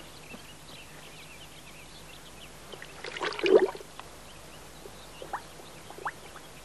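Water splashing and pouring in a short burst about three seconds in, over a quiet outdoor background.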